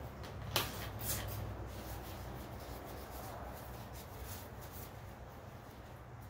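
Handling noises: a sharp tap or click about half a second in and a softer one just after, then light rubbing and rustling, over a steady low hum.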